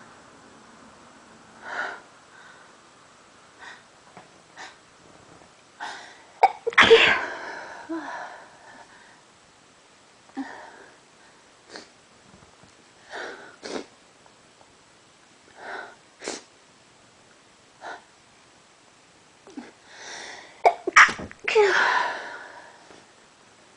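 A person sneezing over and over in an allergy sneezing fit. Smaller sneezes and short breaths come every second or two, and there are two loud bursts: one about seven seconds in and one near the end, each a couple of sharp catches followed by a long sneeze.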